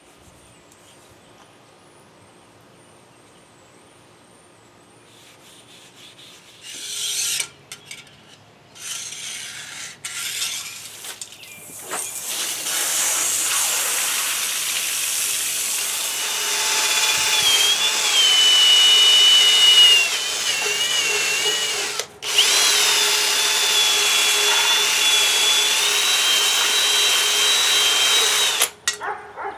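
A handheld electric power tool starts in a few short bursts, then runs steadily for about ten seconds, stops briefly, and runs again for about six seconds, its high motor whine shifting in pitch as it works against the part.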